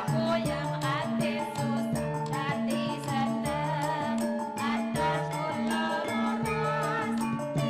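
Javanese gamelan and keyboard music with women singers (sinden) singing into microphones over a steady beat of drum strokes and a repeating low melody.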